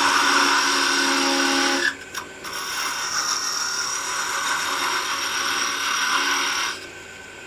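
Parting tool cutting into spinning mahogany on a wood lathe, a steady scraping hiss as it cuts a tenon. The cut breaks off briefly about two seconds in, resumes, and stops shortly before the end.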